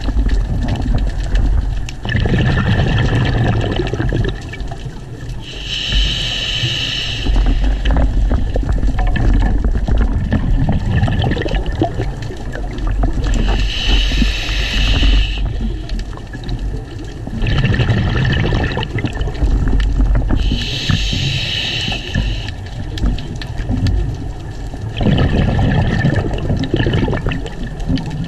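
Scuba diver breathing through a regulator underwater: three hissing inhales about seven seconds apart, each followed by a low bubbling burst of exhaled air.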